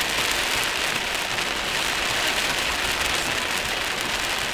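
Heavy rain falling on a moving car, a steady even hiss with no breaks or separate events.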